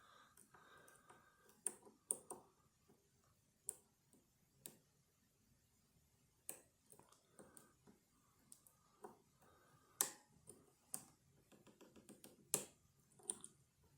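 Small, sharp metallic clicks and ticks at irregular intervals from a lock pick and tension tool working the pins and sliders of a Vachette V-DIS+ dimple lock.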